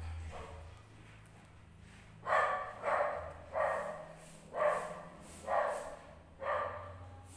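A dog barking repeatedly, six sharp barks spaced less than a second apart from about two seconds in, over a low steady hum.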